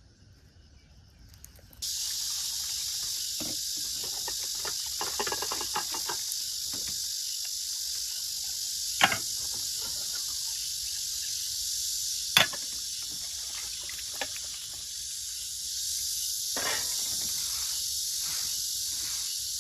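A steady, high-pitched chorus of insects that comes in suddenly about two seconds in, with a few sharp knocks over it, the loudest about nine and twelve seconds in.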